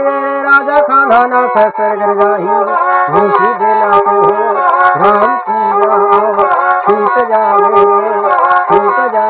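Bana, the bowed folk fiddle of Pardhan Gond bards, playing a continuous melody that slides and bends between notes.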